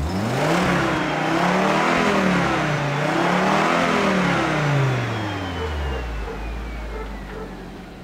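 Volvo V70 2.5 Turbo's turbocharged five-cylinder engine, heard at the stock exhaust tailpipe, revved up three times in quick succession. It then drops back to a steady idle about six seconds in.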